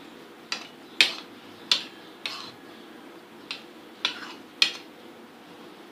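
A spoon clinking against a bowl while stirring syrupy pieces of watermelon rind with food colouring: about seven sharp clinks at uneven intervals.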